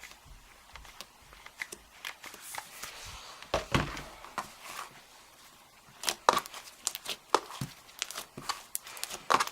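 Homemade slime with foam beads and instant snow being kneaded and stretched by hand, giving irregular sticky crackles and squishy clicks. They come in scattered clusters, busier in the second half.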